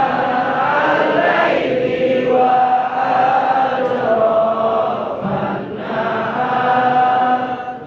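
A large group of schoolboys' voices chanting together in unison, holding long drawn-out notes in phrases with short breaks between them.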